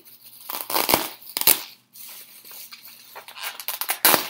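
Crinkling and rustling of paper packaging handled close to the microphone, with sharp knocks about a second in, again half a second later, and near the end.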